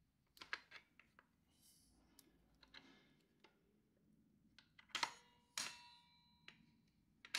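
Faint clicks and light metallic clinks as new brake shoes and their return springs are worked into place on a Honda PCX's rear drum-brake backing plate. About five seconds in, two sharper clinks of metal ring briefly.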